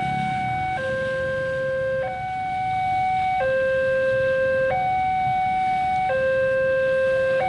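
Railway level-crossing warning alarm sounding its electronic two-tone signal, a lower and a higher note swapping about every 1.3 seconds, the signal that a train is approaching and the barriers are down.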